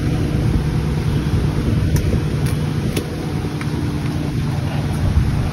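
Steady low rumble aboard a fishing boat at sea, the engine's hum mixed with wind on the microphone. A couple of light knocks come about two and three seconds in.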